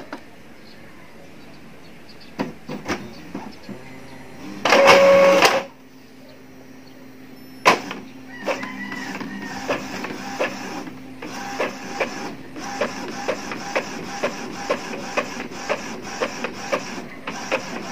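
Epson L3153 EcoTank printer making a colour photocopy. A faint hum and a few clicks, then a loud whir lasting about a second about five seconds in, and a sharp click. From about eight seconds in the printing mechanism runs with regular ticks, about two a second, over a steady low tone as the copy is printed and fed out.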